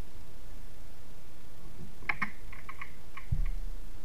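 Light clicks and faint ticks of a largemouth bass being unhooked by hand, starting about halfway through, with a soft low thump near the end.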